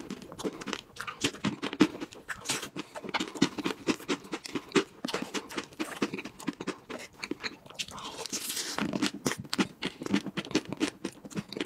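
Close-miked eating of whipped cream from wooden spoons: a quick run of wet lip smacks and mouth clicks, with one longer hiss-like sound about eight seconds in.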